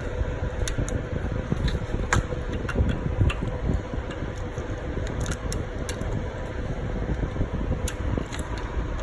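Steady fan-like hum with scattered light metallic clicks and taps as a bolt is fitted into the alternator mounting.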